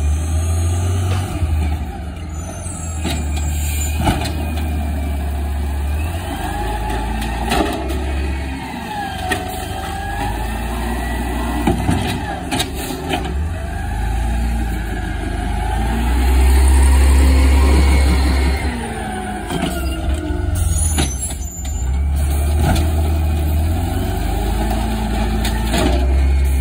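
Automated side-loader garbage truck working the curb. Its diesel engine runs throughout, and its pitch rises and falls with a whine as the hydraulics work. There are air-brake hisses and several sharp clanks from the arm and carts.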